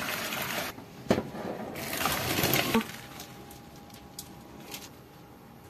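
Hot rice water poured out of a steel pot into a plastic colander in a steel sink, splashing. A knock comes about a second in, then a second pour as the boiled rice slides out, and after that only a faint steady hum and a couple of small ticks.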